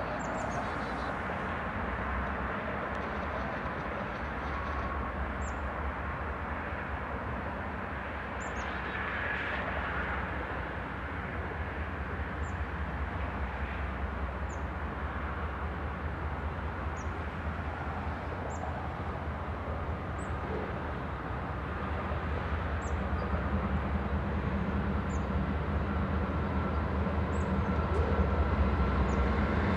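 Norfolk Southern diesel freight locomotives approaching, their low engine rumble building steadily and growing louder over the last few seconds. Short high chirps sound every second or two above it.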